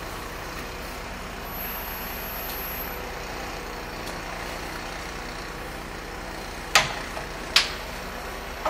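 US Concepts CSR-300 automatic CNC handrail drill moving into its start-up positions, its tilting drill head travelling to the rake angle with a steady mechanical hum. Near the end come two sharp clunks about a second apart, then a smaller one.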